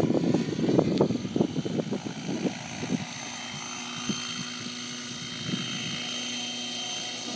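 JetRanger helicopter in flight: loud rotor chop and buffeting for about the first three seconds, then quieter, settling into a steady whine over a low hum.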